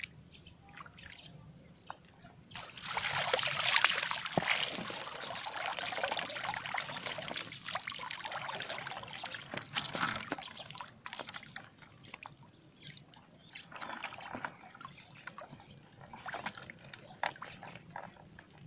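Water pouring and dripping off a woven bamboo fish trap as it is lifted out of shallow flood water: a rush of draining water starting about three seconds in and lasting some seven seconds, then scattered drips and small splashes.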